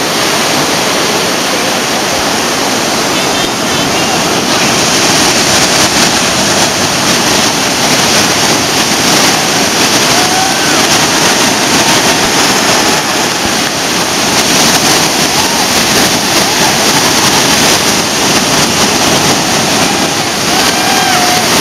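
Ocean surf breaking and washing through the shallows: a loud, steady rush of whitewater close to the microphone.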